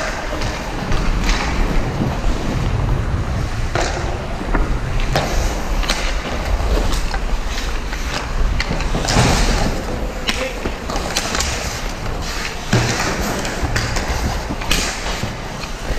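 Hockey skates gliding and scraping, with sharp clicks and knocks at irregular moments from sticks and puck, over a steady low rumble.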